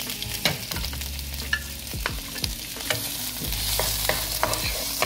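Halved cherry tomatoes and minced garlic sizzling in olive oil in a nonstick frying pan, stirred with a wooden spoon that scrapes and knocks against the pan now and then.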